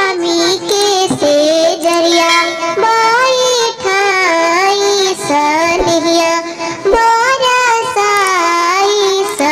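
High-pitched voice singing a sohar, a Bhojpuri folk song, in held notes that bend up and down.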